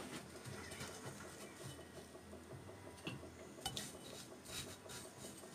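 Faint crumbly rustling of hands pressing panko breadcrumbs onto potato croquettes in a ceramic plate, with a few light clicks against the plate, the clearest a little after the middle.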